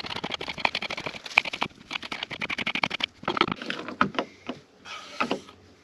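Knife chopping green onions on a wooden cutting board: a fast run of light knocks, thinning to a few separate knocks after about three seconds.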